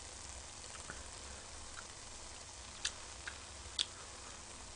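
Faint eating sounds of someone chewing ramen noodles: a few brief small clicks and smacks over quiet room tone, most of them about three to four seconds in.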